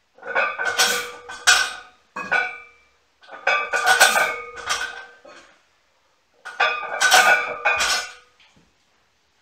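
Barbell loaded with cast-iron plates lifted and set back down three times, about three seconds apart, the plates clanking and ringing on the bar with each rep.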